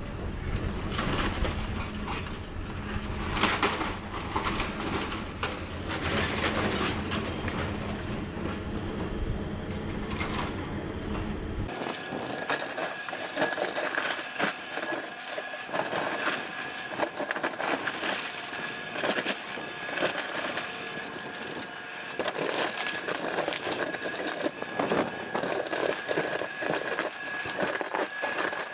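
Excavator with a crushing jaw tearing up a Boeing 747's aluminium fuselage: diesel engine rumble under metallic crunching and grinding. After a cut about 12 seconds in, the rumble drops out, leaving sharp metal cracking and snapping over a steady high whine.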